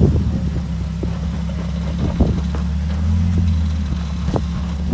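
Off-road rock-crawling rig's engine running at low revs, the throttle picking up briefly about three seconds in, with a couple of sharp knocks.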